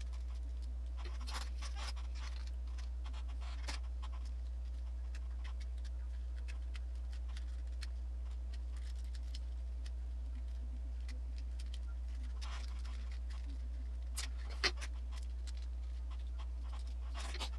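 Scattered small clicks and short rustles of plastic DualShock 3 controller parts being handled and fitted together, with one sharper click late on, over a steady low hum.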